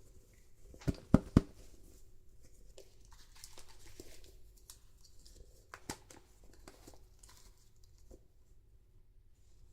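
Hands handling a doll and its plastic packaging: three sharp knocks close together a little after one second in, then soft rustling and scattered small clicks.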